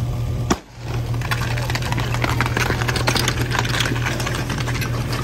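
A sharp starting-pistol bang about half a second in. A portable fire pump's engine runs steadily throughout, under the clatter of hose couplings and running feet on paving as the team races to connect the hoses.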